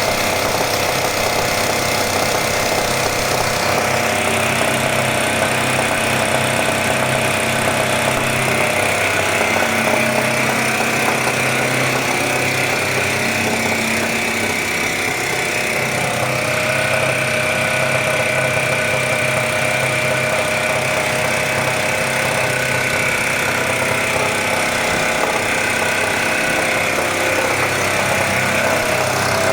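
Single-cylinder 186-type diesel generator engine running at a steady speed, an even, unbroken drone.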